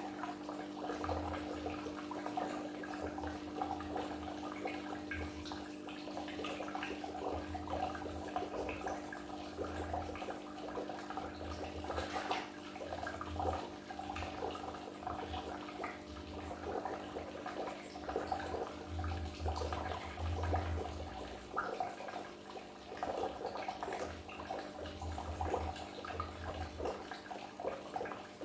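Aquarium water bubbling and trickling continuously, with many small splashes and a steady low hum underneath.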